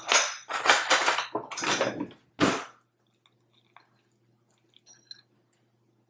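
Metal cutlery rattling and clinking in a kitchen drawer as a fork is taken out: several noisy clattering rattles in the first three seconds, then only a few faint clicks.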